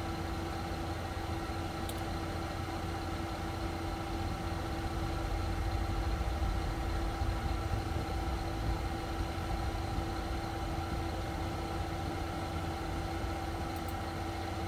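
Steady background machine hum with a few held pitches over a low rumble, the room tone around a running computer. Two faint clicks, about two seconds in and near the end, like mouse clicks.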